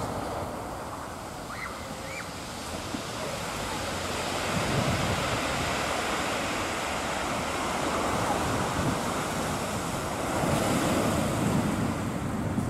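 Sea waves washing onto the beach: a steady hiss of surf that swells and eases, louder about five seconds in and again near the end.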